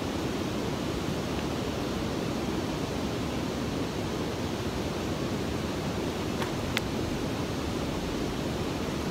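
Steady rush of river water pouring over a low dam. Two brief clicks come about two-thirds of the way through.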